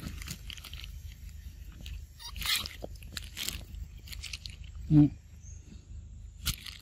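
Scattered rustling and crackling, with one short, loud, low-pitched grunt about five seconds in.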